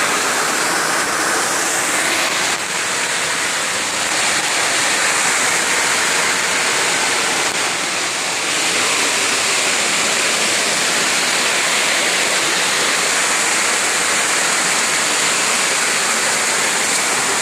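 Waterfall rushing: a loud, steady roar of falling water that does not let up.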